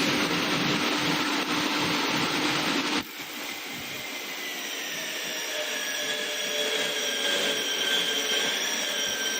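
Vitrex 022 automatic glass drilling machine running. A loud, hissing grind for about three seconds cuts off abruptly, then a steady whine of several tones slowly grows louder.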